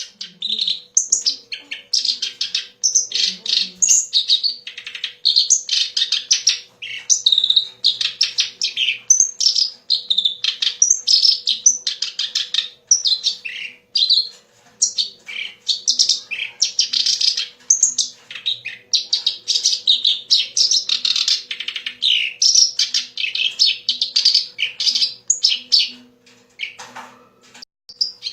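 A Kerak Basi (reed warbler) singing a rapid, unbroken string of varied chattering and whistled notes with only brief pauses.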